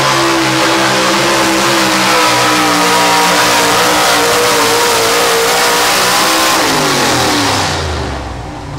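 Pro stock four-wheel-drive pulling truck's engine running hard at high revs under load while it drags the sled, its pitch creeping up slightly midway. About seven seconds in the revs fall away and the engine drops to a low idle as the pull ends.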